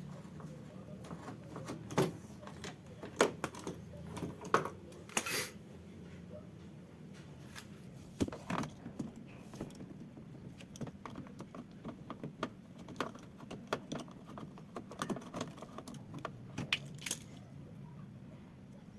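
Irregular metallic clicks, clinks and knocks from tools and parts being handled during hands-on car repair work, with a few louder knocks in the first half.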